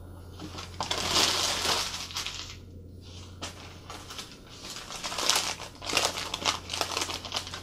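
Newspaper wrapping crumpling and crackling in two bouts, about a second in and again from about four and a half seconds on, over a low steady hum.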